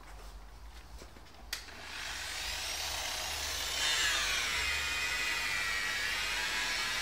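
Electric car polisher with a foam pad: a sharp click about a second and a half in, then the motor spins up to a loud whine that rises in pitch, dips and settles as the pad works the paint.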